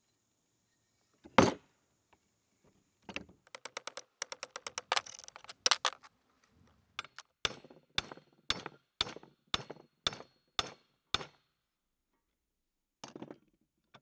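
Hammer blows on the rusty metal parts of an old Manley mechanical floor jack, about two a second, each with a short metallic ring. A single heavy clunk comes about a second in, and a quick rattle of clicks comes before the hammering.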